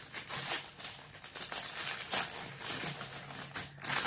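Wrapping crinkling and rustling in the hands as a small gift package is handled and opened, in short irregular rustles.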